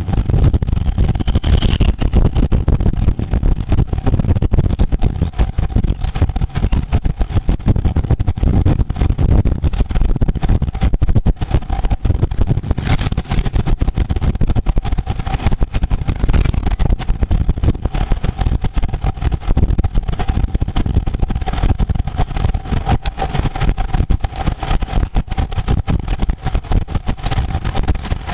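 Wind rushing and buffeting over the microphone of a ride-along camera at road-race speed, with a faint steady whine underneath.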